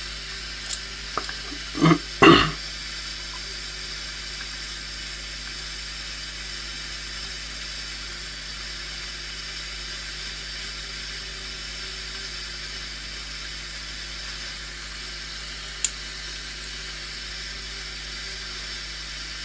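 Steady hiss with a faint low hum underneath, broken by two short louder noises about two seconds in and a single small click near the end.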